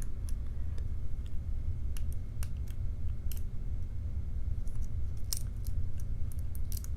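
Small, irregular metallic clicks of a lock pick working the pins of a challenge padlock held under tension, over a steady low hum.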